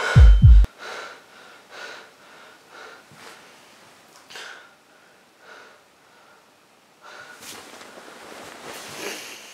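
Two deep thumps at the very start, then a young man breathing hard in short, gasping breaths about a second apart that grow fainter; the breathing grows louder again near the end.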